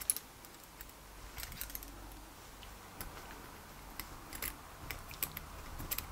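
Faint, irregular small metallic clicks and taps as a small hand tool works the screws that fasten a cylinder onto a miniature aluminium V6 model engine.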